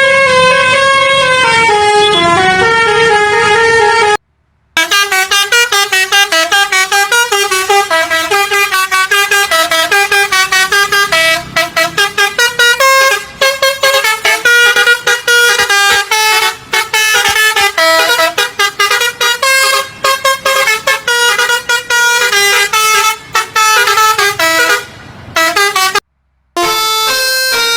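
Indonesian bus 'telolet' basuri multi-tone air horn playing fast melodic runs, the notes changing several times a second. The sound cuts out completely twice for a moment, about four seconds in and near the end.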